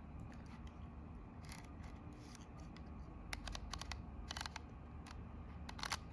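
Small metal clicks from a Kodak Retina IB folding camera's shutter speed control being adjusted. The clicks are short and unevenly spaced, some in quick pairs, with a small cluster near the end.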